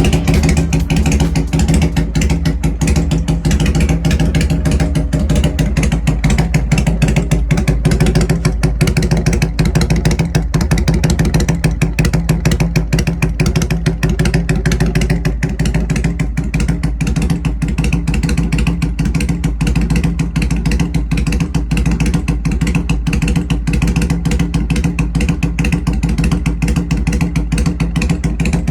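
Kawasaki Vulcan 400 Drifter's V-twin motorcycle engine idling steadily, its exhaust pulses loud and even.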